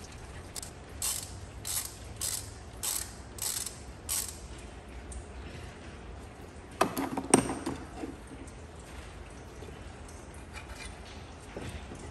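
Ratchet wrench clicking in short strokes, one every half second or so, as the 10 mm bolts are backed out of a GM 5.3 V8's water pump. A louder clatter comes about seven seconds in.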